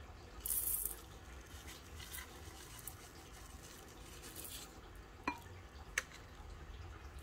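Small aquarium gravel poured from a plastic cup into a glass fish bowl: a loud rattling rush of pebbles about half a second in, then shorter trickles. Near the end come two sharp clicks, the first with a short ring.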